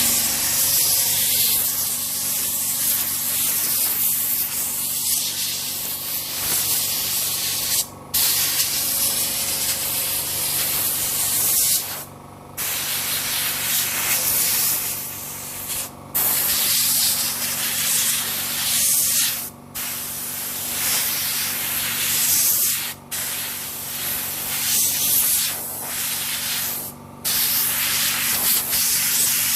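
Compressed air blowing into a keyboard in long hissing blasts, broken off briefly about every three to four seconds.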